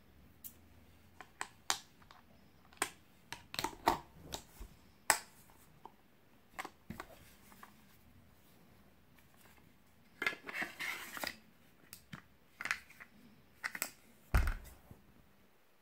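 Scattered clicks and knocks from a Xiaomi Wiha 24-in-1 precision screwdriver kit being handled, as the bit, plastic bit tray and aluminium case knock together. About ten seconds in there is a short scraping slide of the tray in the aluminium sleeve, and near the end a duller, heavier knock.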